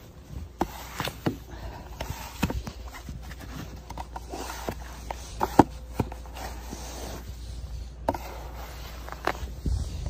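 Snow crunching and scraping as a gloved hand digs through deep snow piled on a car's windshield, with irregular sharp crunches and clicks over a steady low rumble.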